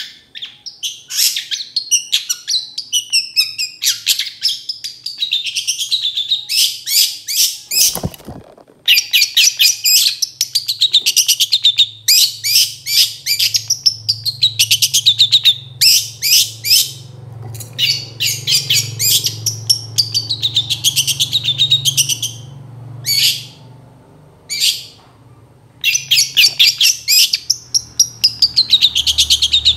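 Long-tailed shrike singing a rapid, chattering song of short sharp notes, in bursts with short pauses between them.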